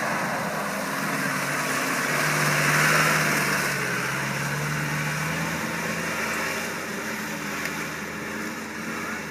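Land Rover Discovery engine pulling at low speed through a boggy mud track, over a broad noise of tyres working through wet mud and water. The engine note grows louder about two seconds in and fades after about six seconds as the vehicle moves away.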